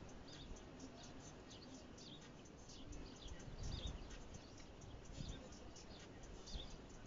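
Faint bird chirps repeating every second or so, over a low outdoor rumble that swells briefly about four seconds in.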